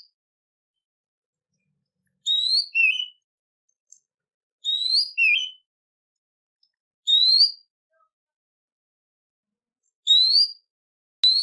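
A songbird singing a short whistled phrase over and over, a rising clear note followed by a lower second note, about every two to three seconds with pauses between.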